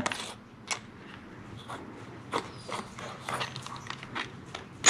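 Scattered light clicks and knocks at uneven spacing as a cordless drill is handled and its bit is set into a screw head on the boat's plastic, without the motor running.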